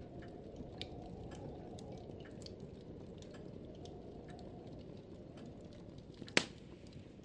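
Camera handling noise: small scattered clicks and rubbing over a low steady hum, with one sharp click about six and a half seconds in.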